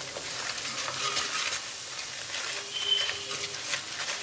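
Wooden spatula stirring and scraping in a non-stick kadai while a tadka (spices tempering in hot oil) sizzles under it, with spice powder being stirred in. Irregular short scrapes sit over a soft, steady sizzle.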